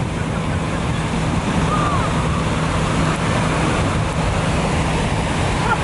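Breaking surf rushing steadily, with wind buffeting the microphone and a steady low hum underneath.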